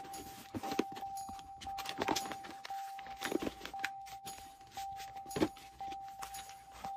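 Unboxing handling noise: irregular taps, clicks and plastic rustles as accessories in plastic bags are lifted and set down on a cardboard box, over a steady high tone that breaks off about once a second.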